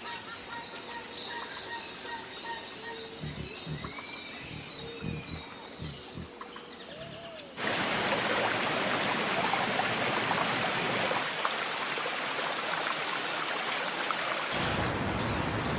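Nature ambience: short bird chirps over a steady high insect drone. About seven and a half seconds in, it cuts abruptly to a loud, even rushing hiss like running water, which grows deeper about a second before the end.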